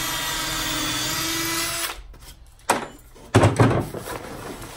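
Power drill running steadily for about two seconds, then stopping. A sharp knock follows, then a louder cluster of knocks and handling thumps against the wooden board.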